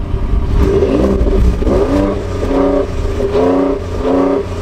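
2018 Ford F-150's engine revved repeatedly through its exhaust, the pitch rising and falling several times over a steady low rumble.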